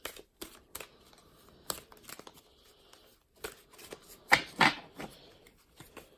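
A deck of large oracle cards being shuffled by hand: a run of short card flicks and rustles, with the loudest pair of slaps a little over four seconds in.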